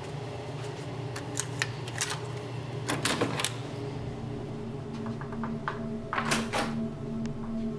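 Refrigerator running with a steady hum, broken by irregular clicks, ticks and knocks. A cluster comes about three seconds in and a louder pair near the end.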